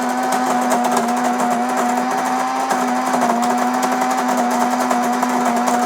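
Breville Grind Control coffee maker's built-in grinder running steadily, grinding whole coffee beans into the filter basket: an even motor hum with a gritty grinding noise over it.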